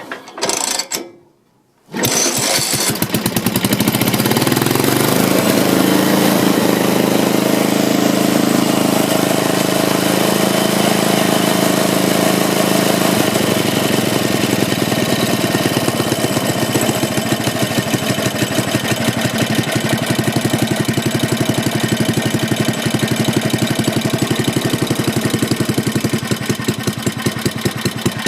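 Soviet UD-1 single-cylinder petrol engine starting about two seconds in, after a short burst of noise, then running steadily with an even firing beat.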